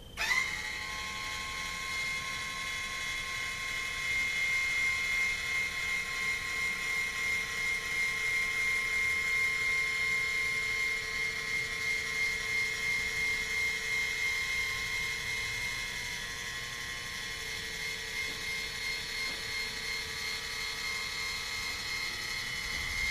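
Electric linear actuator on a log grapple running through one slow, full stroke: a steady motor and gear whine that starts suddenly and cuts off after about 23 seconds.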